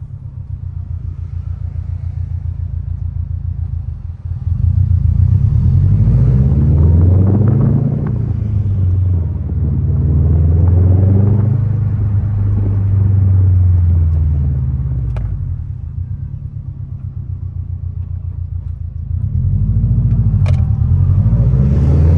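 2021 Subaru WRX STI's turbocharged 2.5-litre flat-four through an aftermarket Tomei exhaust, heard while driving. It cruises steadily, then about four seconds in it gets louder and rises and falls in pitch through several spells of accelerating and lifting off, the last near the end.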